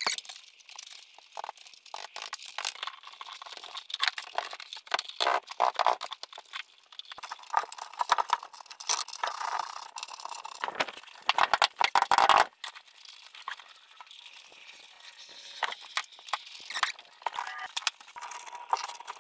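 Hands working a rubber door weatherstrip and plastic interior trim pieces into place on a pickup cab: irregular rubbing, crunching and sharp plastic clicks, busiest and loudest about two-thirds of the way through.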